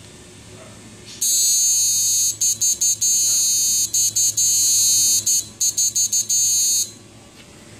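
High-pitched electronic whine from a 2-MOSFET power board driven by an SG3525 PWM module while it lights a halogen tube lamp under load. It starts about a second in, cuts out briefly several times, and stops about a second before the end.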